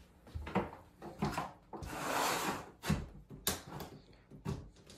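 A door being opened by hand: several sharp knocks and clicks from the latch and handling, with a short rushing swell about two seconds in.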